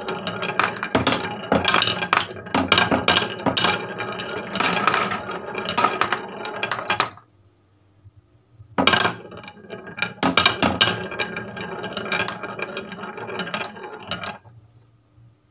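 Marbles rolling and clattering down a HABA wooden marble-run track, a dense stream of clicks and rattles. It breaks off for about a second and a half near the middle, starts again, and dies away near the end.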